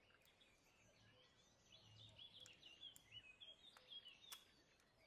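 Near silence with faint bird chirps in the background, many short chirps one after another, and a few faint clicks near the end.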